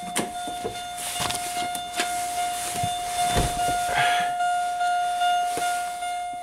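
Electronic warning chime holding one steady high tone that pulses about once a second, with scattered clicks and a dull thump about three and a half seconds in.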